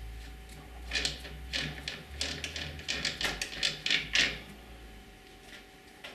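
Metal clicks and knocks from the lens mount of a Bauer B 8 B cinema projector as the standard projection lens is fitted back and fastened by hand. It is a quick, uneven run of sharp clicks from about a second in until just after four seconds.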